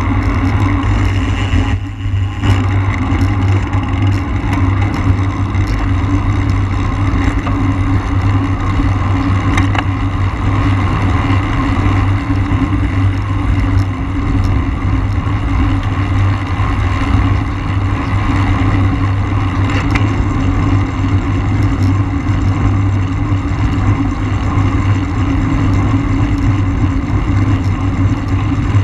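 Steady rush of wind over the microphone of a camera riding on a racing road bike at speed, easing briefly about two seconds in.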